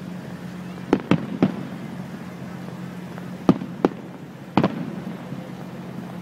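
Aerial firework shells bursting in the sky: six sharp booms in irregular groups, three in quick succession about a second in, two more past the middle and a last one shortly after, each with a short echo. A low steady hum runs underneath.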